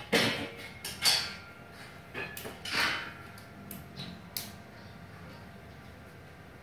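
A run of sharp knocks from hard parts being handled: several loud ones in the first three seconds and two lighter ones about four seconds in.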